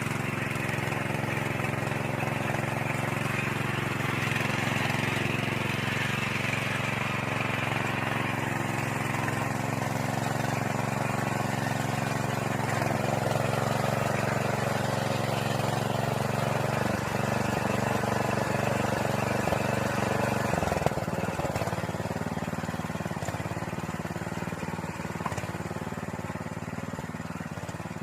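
Small engine of a walk-behind soil tiller running steadily. Its note shifts and wavers about two-thirds of the way through, with a single sharp knock, and it grows slightly quieter near the end.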